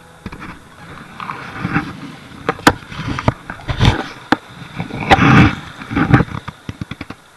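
Footsteps splashing through shallow water, in irregular surges about a second apart, mixed with sharp knocks and fabric rubbing against the body-worn camera.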